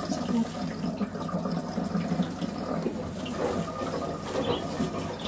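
Water running and splashing into a wash tub as a wet poodle is bathed.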